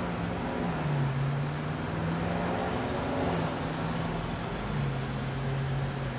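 An engine running in the background, its low hum stepping up and down in pitch every second or so.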